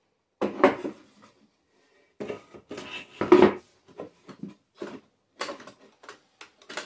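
A wooden box knocking and clattering against a wooden spline jig and its clamp bar as it is set in place: a run of wooden knocks and taps, the loudest about half a second in and again just past three seconds.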